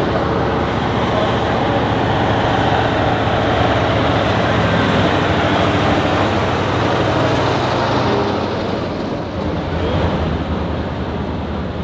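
Heavy truck's diesel engine running steadily close by under a loud wash of mechanical noise, easing off somewhat in the last few seconds.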